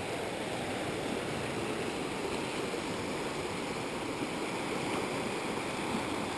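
River water rushing steadily over boulders, an even, unbroken noise.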